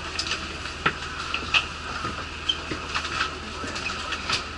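Inside an idling bus: a low steady engine hum with scattered light clicks and knocks through the cabin.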